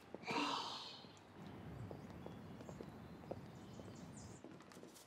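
A short, soft breathy vocal sound, like a sigh or light exhale, in the first second. Then faint ambience with scattered light ticks.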